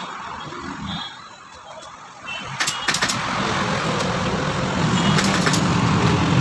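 Street traffic: a motor vehicle's engine hum starts about halfway through and grows louder. A few sharp clicks come in two small clusters.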